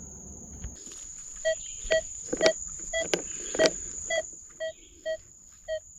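Minelab Manticore metal detector giving repeated short, mid-pitched beeps about twice a second as the coil is swept over a buried target, a signal the detectorist reads as a button. A few light knocks come among the first beeps. A steady high insect trill sounds in the background.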